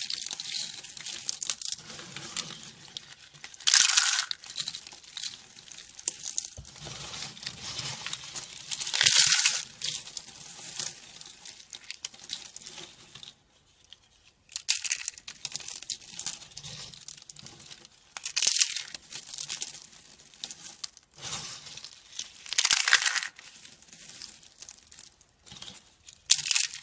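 Dry bar soap crackling and crunching as it is cut, with louder crunches every four to five seconds.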